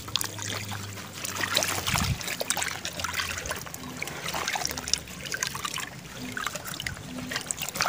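Shallow pond water trickling and splashing, with many small quick splashes from gourami fingerlings flapping in a harvesting net.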